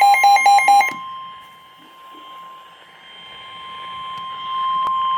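Emergency alert tones: rapid beeping at about five beeps a second for roughly the first second, then a steady single-pitch warning alarm tone near 1 kHz that grows louder toward the end. This is the weather-radio warning alarm that comes before a severe weather warning is read. A sharp click sounds near the end.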